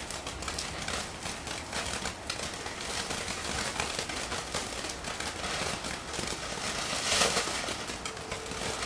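Firework crackling steadily, a dense rapid patter of small pops, growing louder for a moment about seven seconds in.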